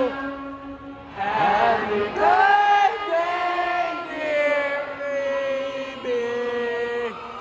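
Live concert singing heard from the audience: long held sung notes that slide between pitches, over quiet accompaniment, with a short lull about a second in.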